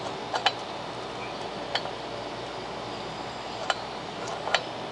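Light metal clicks and clinks, about five spread irregularly, two of them close together near the start, as the claws of a flywheel puller are set by hand against the flywheel fins of a 1960s Tecumseh horizontal small engine.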